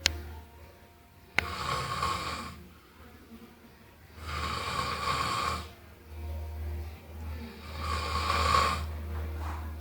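Snoring in slow breaths, three rasping snores about three seconds apart, over a steady low hum. A sharp click comes just before the first snore.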